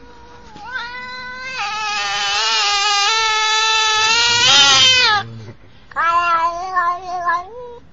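A black-and-white domestic cat yowling: one long, drawn-out call that grows louder over about five seconds, then after a short pause a second, shorter call that breaks up in the middle.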